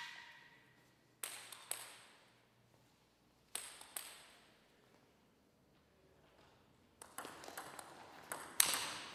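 Table tennis ball clicking: a few separate pairs of clicks early on, then from about seven seconds in a quick rally of bats striking the ball and the ball bouncing on the table, the loudest hit near the end. Each click leaves a short echo.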